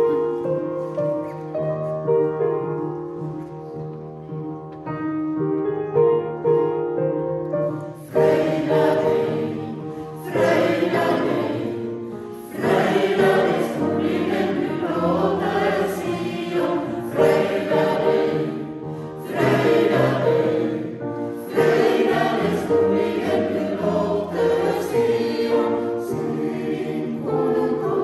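Mixed church choir singing a hymn with piano accompaniment. The first few seconds are a piano introduction with held notes, and the full choir comes in about eight seconds in.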